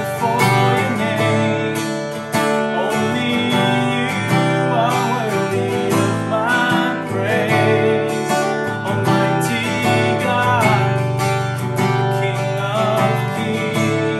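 Acoustic guitar strummed steadily while a man sings a worship song.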